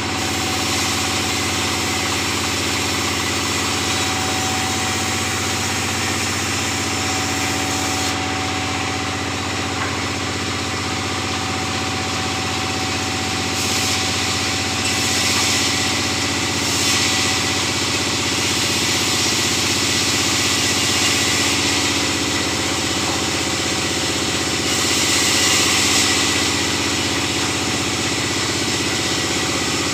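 Large vertical band saw running with a steady hum while teak planks are fed through it; a stronger hiss of the blade cutting the wood comes in stretches of a few seconds, about fourteen seconds in and again near the end.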